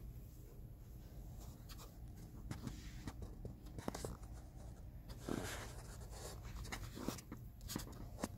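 Scattered small clicks and short scratchy rustles over a steady low hum, with a longer swishing rustle about five seconds in.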